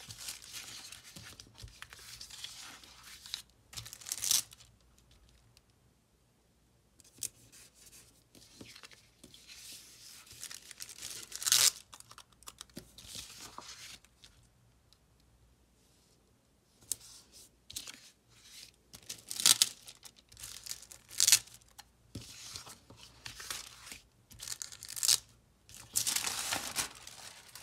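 Stickers being peeled off their backing sheets and paper planner pages being handled and slid around, in short rustling, tearing bursts with a few sharper clicks, separated by quiet pauses.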